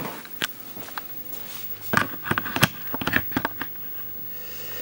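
Handling noise of a Minitel's plastic case being opened: a scatter of light knocks and clicks, most of them about two to three and a half seconds in.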